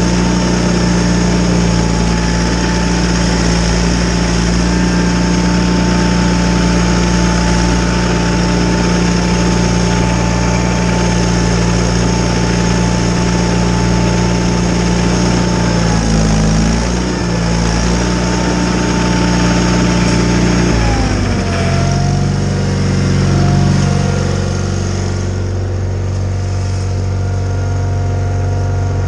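John Deere 318 garden tractor's twin-cylinder engine running steadily while driving a Model 49 snowblower, with a steady whine above the engine note and a hiss. About twenty seconds in, the engine note drops and settles lower, and the hiss fades a few seconds later.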